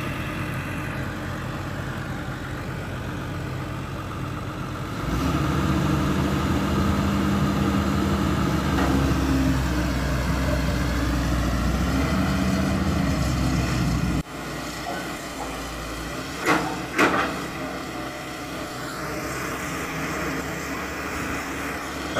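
Hydraulic excavator's diesel engine running, rising to a louder, higher working speed about five seconds in and dropping back to a lower speed past the middle. Two sharp knocks come a couple of seconds later.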